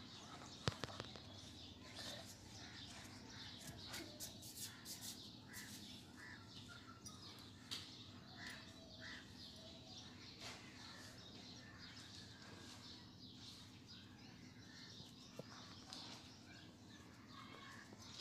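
Faint, scattered clicks of fingernails pinching nits off strands of hair. Faint bird chirps in the background.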